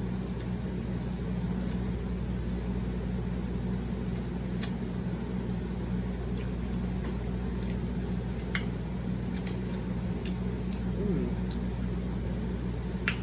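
Steady hum of a fan or air conditioner, with a few scattered soft clicks of chewing and mouth sounds while someone eats.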